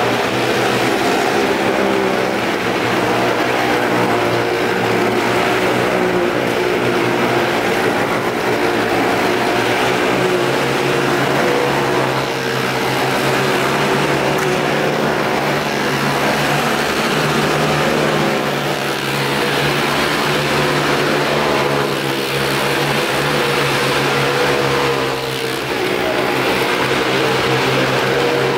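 Motorcycle engines running steadily as riders circle the vertical wall of a well-of-death drum.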